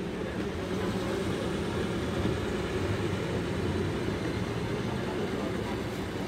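Steady rumble of street traffic in a busy town centre, an even noise with no single event standing out.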